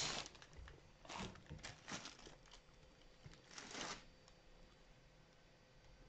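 Plastic packaging crinkling as it is handled, in a few short bursts during the first four seconds.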